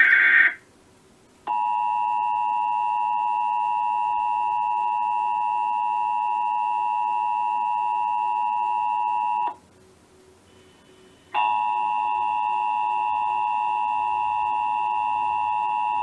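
The end of a short Emergency Alert System data burst, then the EAS attention signal: a steady two-tone alarm (853 and 960 Hz) played through a TV speaker. It holds for about eight seconds, stops, and starts again about two seconds later.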